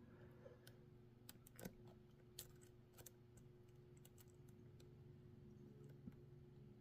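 Faint, scattered metallic clicks and ticks of a lock pick and tension tool working the pins of a five-pin Mul-T-Lock cylinder, a few a second at most, over a steady low hum.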